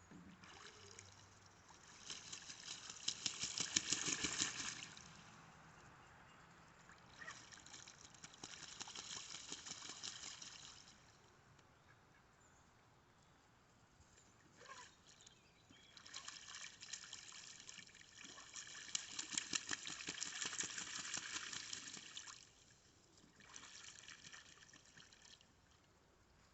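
Faint water trickling and splashing in several bursts of a few seconds each, with a fine rapid crackle running through each burst.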